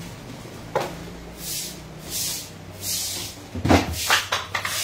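An emptied cardboard box being handled and put aside: a sharp knock about a second in, a few soft scuffs, then a cluster of thumps and knocks near the end.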